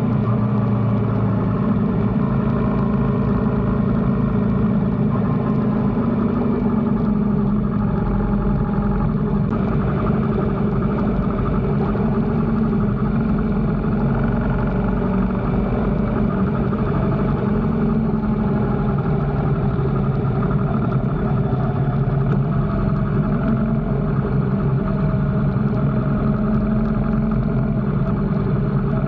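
BMW R1300GS Adventure's boxer-twin engine running steadily on the move, its pitch drifting only slightly, over a steady rushing noise.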